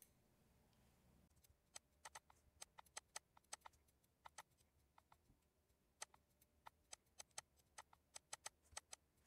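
Faint computer mouse clicks in an irregular run, often in quick pairs, starting about a second and a half in, over a faint low hum.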